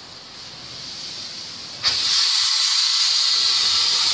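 Steam locomotive BR Standard Class 4MT 4-6-0 No. 75078 releasing steam from its open cylinder drain cocks. A faint hiss builds, then a loud, steady hiss starts suddenly about two seconds in.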